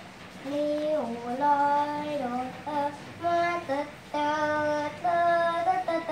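A young child's voice singing a Thai khon melody solo, a slow line of long held notes that steps up and down, with short breaks between phrases.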